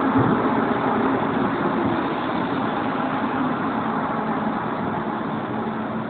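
Metro train running, a steady noise inside the carriage that slowly grows quieter over the seconds.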